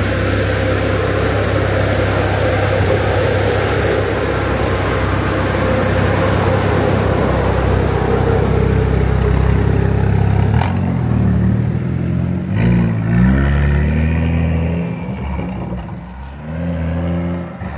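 White BMW coupe's engine running steadily as the car rolls off, then revving up as it pulls away down the street, the pitch rising in a couple of pulls past the middle and again near the end.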